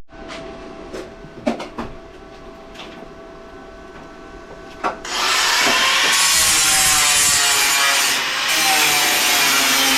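A few handling knocks and clicks, then about halfway an angle grinder with a flap disc starts and grinds continuously, cleaning up the edges of the fender pieces.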